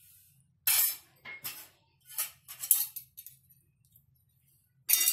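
Metal spoon clinking and scraping against a metal cooking pot while par-boiled rice is spread in a layer: a handful of short, separate strikes, with the last and loudest near the end.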